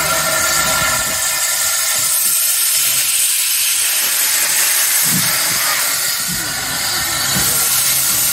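0-8-0T tank steam locomotive starting its train: a loud, steady hiss of steam blowing from its open cylinder drain cocks. From about five seconds in, low exhaust chuffs join the hiss as it moves off.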